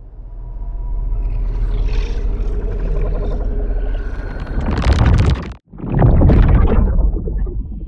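Designed sci-fi sound effects: a deep, heavy drone fades in and swells to a loud burst, cuts off abruptly about five and a half seconds in, then a second loud hit follows and dies away.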